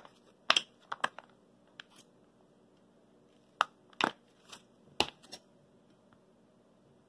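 A dozen or so sharp, irregular clicks and knocks of a table knife and plate being handled while sour cream goes onto a slice of bread, over a faint steady hum.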